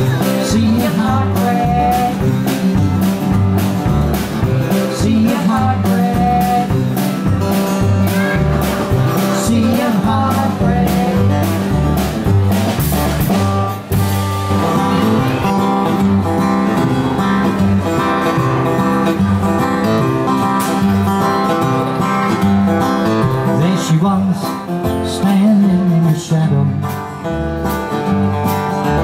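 Live country band playing an instrumental stretch, guitar to the fore, over a steady beat.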